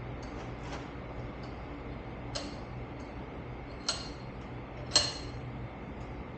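A steady low hum with four short, sharp knocks spaced through it, the loudest about five seconds in.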